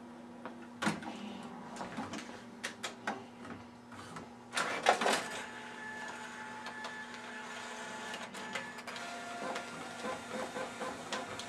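Lexmark Pinnacle Pro 901 all-in-one printer copying, its automatic document feeder pulling a sheet all the way through. Scattered clicks come first, then a louder clatter of the mechanism about four and a half seconds in, then a steady motor whine as the page feeds. The feeder is working properly again now that the springs of its broken hinge are removed.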